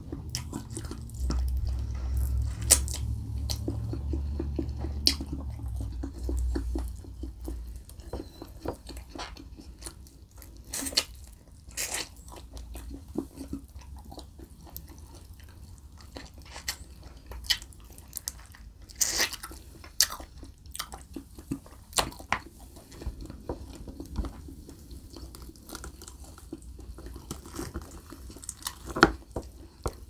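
Close-miked chewing and biting of sauce-covered barbecue pork ribs, with wet mouth smacks and clicks scattered throughout. A low rumble runs under the first several seconds. Near the end comes the sticky, wet sound of a sauced rib being pulled off the rack by hand.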